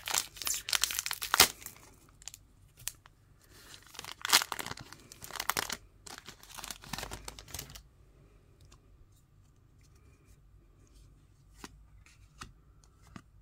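Foil wrapper of a trading-card pack crinkling and tearing as it is ripped open, in loud bursts over the first eight seconds. After that it goes much quieter, with a few faint clicks of the cards being handled.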